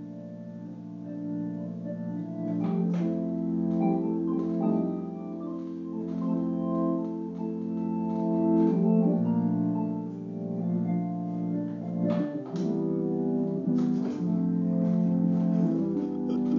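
Two-manual home spinet organ being played: sustained chords shifting from one to the next over a low bass note that changes every few seconds.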